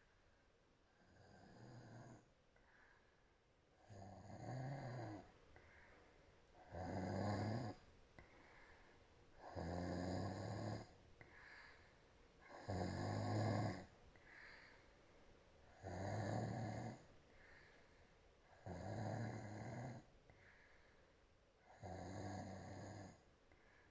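Soft snoring from a sleeping woman breathing through a wide-open mouth. There are about eight snores at an even rhythm of one every three seconds, each a buzzing rasp of about a second on the in-breath, with quiet breathing between.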